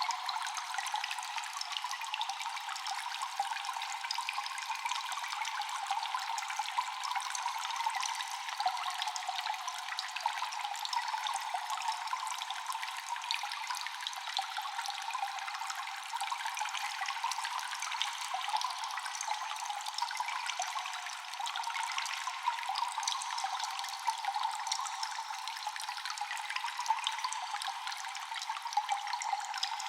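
Water dripping constantly in a cave, many echoing drops falling in quick, irregular succession over a steady trickling hiss of water.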